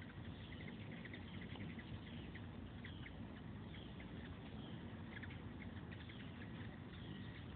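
Hummingbirds squeaking and chipping at feeders: many short, high chirps and little down-slurred squeaks repeating, faint, over a low background rush.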